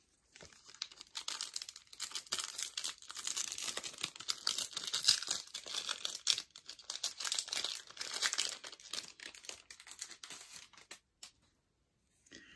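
A Topps Opening Day baseball card pack's wrapper being torn open and crinkled in the hands: a dense crackling that stops about eleven seconds in.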